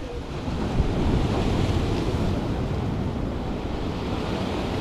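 Sea surf breaking and washing against the jetty's boulders, a steady rush that swells louder about a second in, with wind buffeting the microphone.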